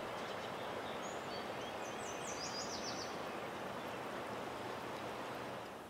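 Swollen river in spring flood, rushing steadily. A few quick, high bird chirps come between about one and three seconds in, and the sound fades out at the very end.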